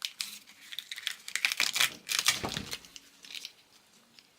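Plastic wire loom and wires of an engine wiring harness being handled: a quick run of small crinkling clicks and rustles, busiest in the middle and thinning out near the end.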